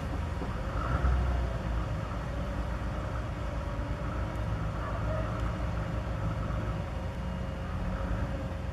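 Steady low rumble of a heavy diesel engine running, with a thin steady hum above it; the rumble swells briefly louder about a second in.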